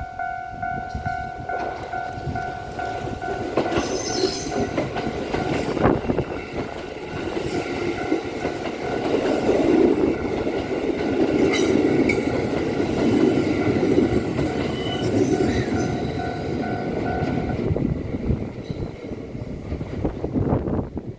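Kintetsu 50000 series Shimakaze limited-express train passing over a level crossing while the crossing's warning bell rings as a steady two-tone sound. The train noise builds and is loudest around the middle. The bell stops a few seconds before the end.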